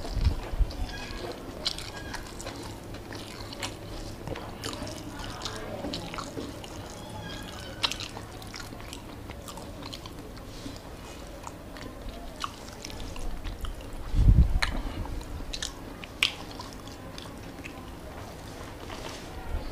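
Eating rice by hand: fingers working rice on a plate and chewing, heard as scattered short mouth and finger clicks. A dull low thump comes about fourteen seconds in.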